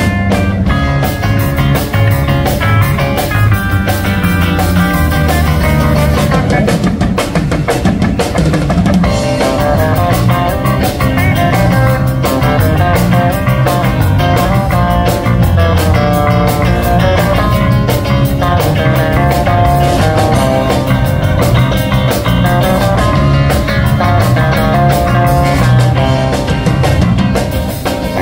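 A live rock band playing: electric guitars and electric bass over a drum kit, loud and steady.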